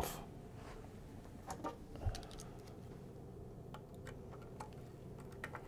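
Faint, scattered light clicks of a small hand tool fitting into and turning the screws that clamp the tone arm in its mounting base, loosening them for height (VTA) adjustment.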